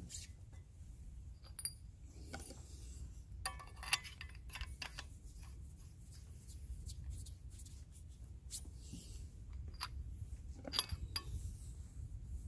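Scattered metallic clicks and clinks from the sectioned handle of a Sahara Sailor tactical shovel as its pieces are handled and screwed together, over a low steady rumble.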